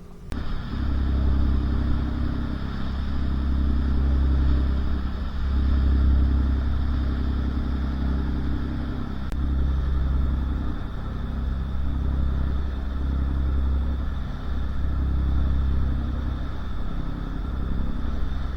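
Motor boat's engine running underway, a steady low drone that swells and eases every few seconds, over a constant hiss.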